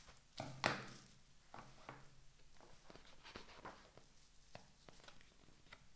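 Scissors snipping and a padded paper envelope being cut open and handled, with paper rustling and small clicks throughout; the loudest is a short rustle about half a second in.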